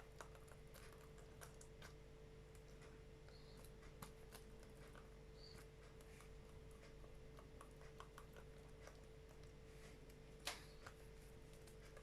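Near silence with a steady faint hum and scattered small clicks or taps, one sharper click about ten and a half seconds in.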